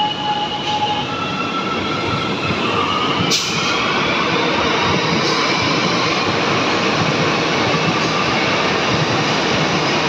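Mumbai Metro Line 3 train pulling away, its traction motors whining in tones that climb in pitch over wheel-on-rail running noise. The noise grows louder for the first few seconds, then runs steady as the cars pass. There is one sharp click about three seconds in.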